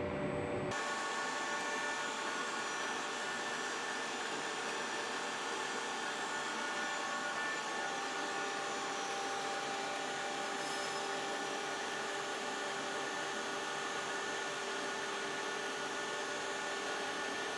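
Toshiba TD 60/85 CNC vertical turning and boring mill running: a steady mechanical whirr with several high, steady whining tones. The sound changes abruptly less than a second in.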